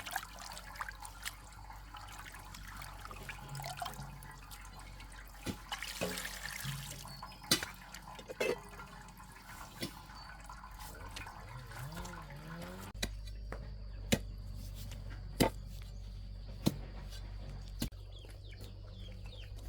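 Water splashing and dripping, with scattered sharp knocks. From about two-thirds of the way in, knocks come evenly, a little over a second apart, over a low hum.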